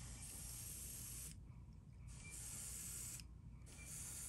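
Airbrush spraying paint at low pressure through a stencil: three faint bursts of hiss, each about a second long, with short pauses between.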